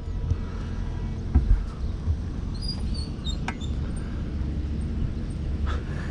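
Wind buffeting an outdoor microphone as a steady low rumble, with a couple of soft thumps about one and a half seconds in. A few faint bird chirps come around the middle.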